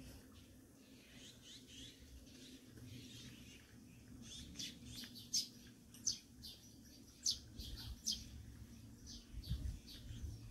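Small birds chirping: many short, high chirps, busiest in the middle of the stretch, over a faint steady low hum.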